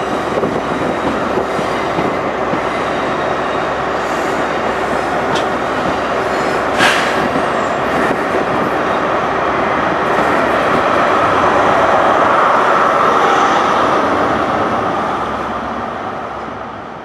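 Great Western Railway HST (InterCity 125) passing slowly along the platform: Mark 3 coaches rumbling and clicking over the rails, with one sharp clack about seven seconds in. The sound builds as the rear Class 43 diesel power car goes by, loudest a few seconds before the end, then fades away.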